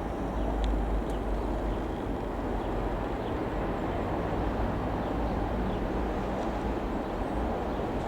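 Light aircraft's piston engine and propeller droning steadily as it flies over, with some wind on the microphone.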